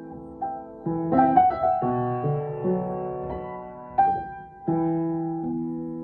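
Piano playing slow, ringing chords with a melody line on top, each chord struck and left to decay.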